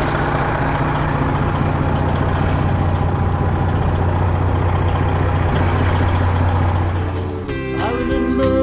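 Semi truck's diesel engine running with a steady low hum. A country song comes in near the end.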